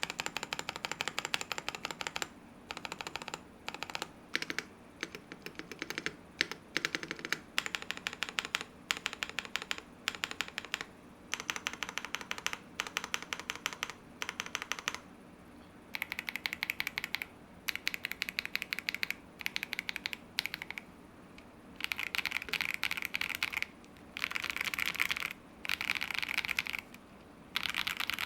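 Typing on a mechanical keyboard with Akko Radiant Red linear switches on a polycarbonate plate (KBD67 Lite R2 with GMK-clone keycaps): quick runs of key presses, a few seconds each, with short pauses between them. The stock switches sound poppy and a little loud.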